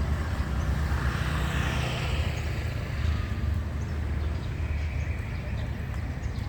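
Road traffic noise: a steady low rumble, with a vehicle passing and swelling louder about one to three seconds in.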